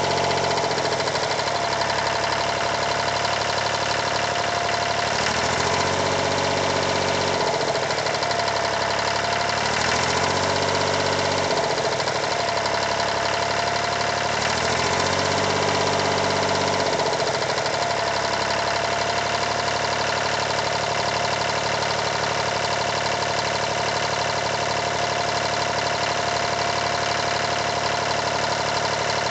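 Yanmar 336D tractor's diesel engine running steadily. Its note changes briefly three times, about five, ten and fifteen seconds in, before settling again.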